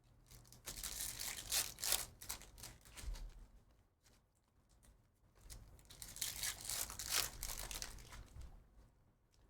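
Trading-card pack wrappers being torn open and crinkled by hand, in two bouts of a few seconds each.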